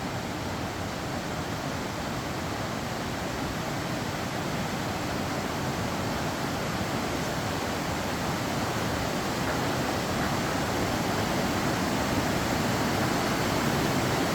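Loud, steady rushing of a fast-flowing river, growing gradually louder.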